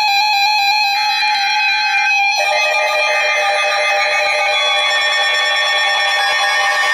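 Emergency Alert System tones, loud and electronic. For about the first two seconds, higher data-burst tones switch on and off over a steady lower tone. From about two and a half seconds in, a dense chord of many steady tones sounds together.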